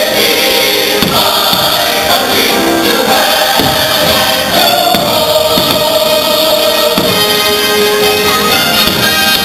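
A choir sings over the fireworks show's music soundtrack, loud and steady. A few fireworks bursts break through, about one second in, midway and about seven seconds in.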